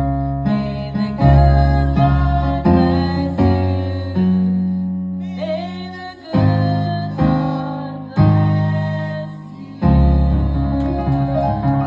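Electric keyboard playing slow sustained chords, each struck with a deep bass note and left to fade before the next.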